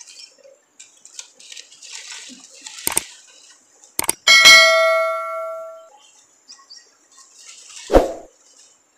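Subscribe-button sound effect: mouse clicks, then a bell ding about four seconds in that rings out for about a second and a half. A thump comes near the end, and faint bird chirps sound in the background.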